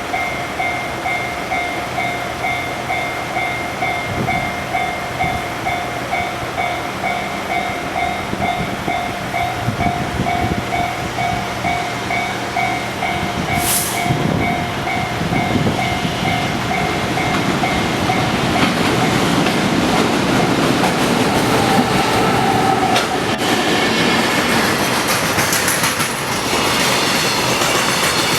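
Level crossing alarm bell ringing in a steady pulsing rhythm as a freight train hauled by an EF200 electric locomotive approaches. From about two-thirds through the train grows louder and passes, its wheels clattering over the rail joints with some squealing.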